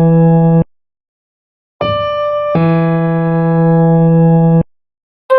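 Sustained chords on an electronic keyboard, each held at a steady level without fading and then cut off abruptly. A chord ends early on, a new one sounds after about a second of silence and changes partway through, then stops, and another begins near the end.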